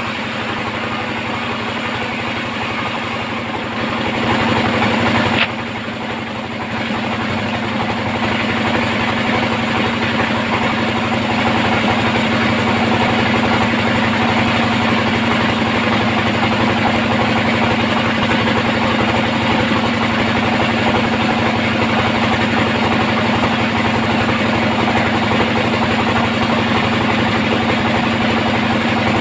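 Sawmill band saw machinery running continuously with a steady hum. It gets louder about four seconds in, drops off suddenly a little later, then builds back up and holds steady through the rest.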